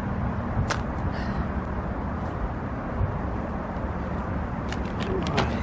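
A steady low background drone with a faint hum, broken by a few sharp clicks: one about a second in and a small cluster near the end.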